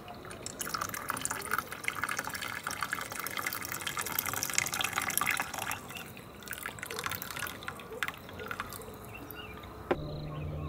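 Coffee pouring from a French press into a stainless steel camping mug: a splashing stream for about five seconds that thins into a trickle and a few drips.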